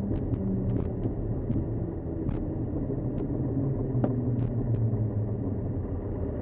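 Cirrus SR20's single-engine piston engine and propeller idling with a steady low drone during the landing rollout and turn-off, heard from inside the cockpit. Faint scattered clicks sound over it.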